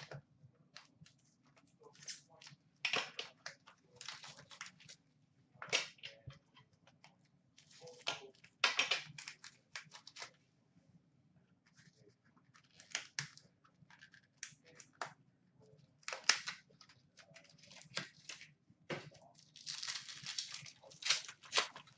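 Hockey card packaging being torn open and handled: scattered crackles, tears and clicks of wrapper and plastic, with a longer rustle near the end.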